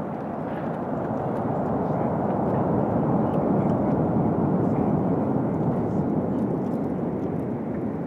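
Rumble of an imploded power-plant boiler building collapsing and its debris coming down, swelling over the first few seconds and then slowly easing.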